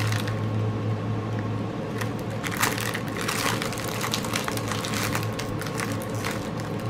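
Small plastic bags of diamond-painting drills crinkling and crackling irregularly as they are handled and sorted, over a steady low hum.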